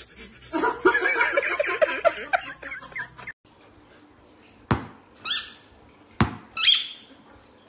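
About three seconds of rapid, warbling, pitched sound that cuts off suddenly. Then a squeaky rubber chicken toy squeaks twice in a German Shepherd puppy's mouth, each squeak coming shortly after a sharp knock.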